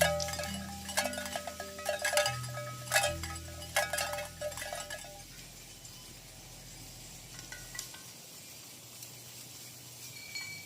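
Bell-like chiming: many struck metallic notes ringing out over low held tones. About five seconds in it thins to a few soft notes.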